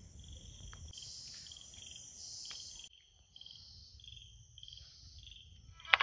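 Crickets chirping at dusk: a high, pulsing chirp repeating a couple of times a second over a faint low rumble. The sound changes abruptly about halfway through, and a few sharp clicks come at the very end.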